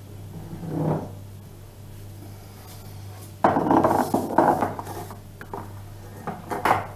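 A spoon scooping flour, scraping and clinking against kitchenware. A louder stretch of scraping and clicks comes about halfway through, then a few sharp knocks near the end. A steady low hum runs underneath.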